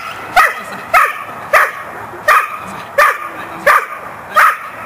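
Belgian Malinois barking at a helper in a bite suit during protection training: short, sharp barks in a steady rhythm, about one every 0.7 seconds, seven in all.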